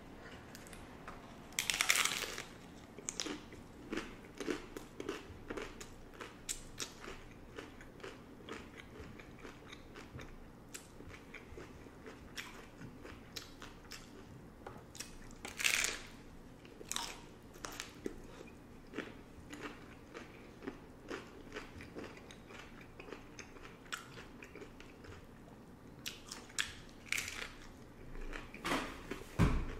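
Hard-shell beef tacos being bitten and chewed: a run of short, sharp crunches of the crisp shells with quieter chewing between, loudest about two seconds in and again about halfway through.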